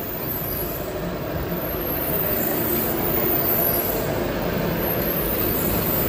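Steady machinery noise from a running rotary drum carbonization furnace line: a constant rumble and hum with no breaks, getting slightly louder toward the end.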